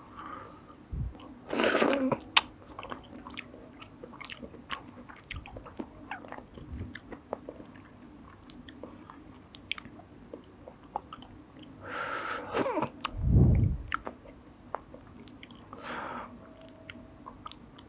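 Close-up sounds of eating soup noodles: chewing with many small wet clicks, and louder slurps about two seconds in and around twelve seconds in. A low thump follows the second slurp.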